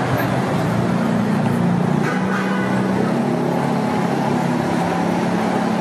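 Steady city street traffic noise from passing cars, with a low engine hum.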